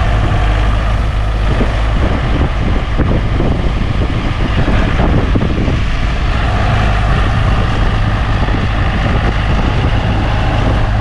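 Tractor engine running steadily, with wind rumbling on the microphone.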